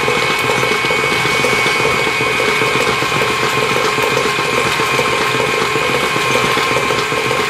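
KitchenAid Classic stand mixer running steadily, its beater creaming butter in the stainless steel bowl, with a steady motor whine over the churning.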